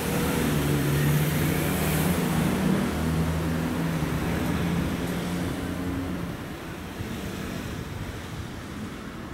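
Container freight train rolling away on the rails, its wagons' wheels rumbling and clattering with a low steady hum. The sound fades from about halfway through as the train recedes.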